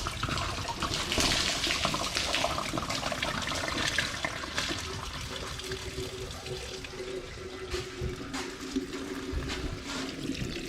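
Engine coolant pouring out of the radiator of a 2003 Mercury Grand Marquis through the just-pulled lower radiator hose, heaviest in the first few seconds and then running on a little weaker.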